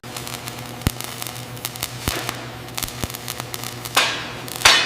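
Scattered sharp clicks and knocks over a steady low hum, with a rising hiss about four seconds in and a louder, short hiss burst just before the end.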